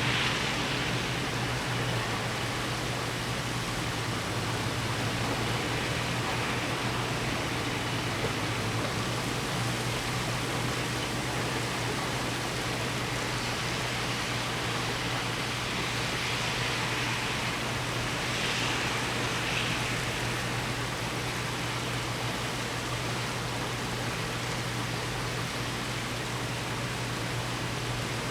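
Heavy thunderstorm rain pouring down in a steady roar of noise, with a low steady hum underneath.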